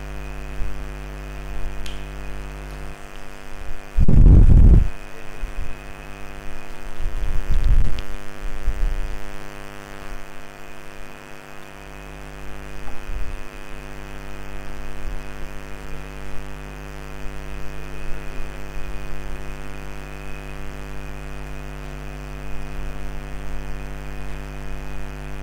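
Steady electrical mains hum with a buzzy stack of overtones, picked up by the recording's microphone. About four seconds in, and again from about seven to nine seconds, it is broken by loud low rumbling thuds.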